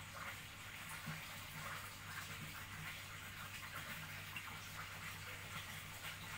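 Faint, irregular rustling of a soft toothbrush stroking the fur of a cat's face, over a steady low electrical hum.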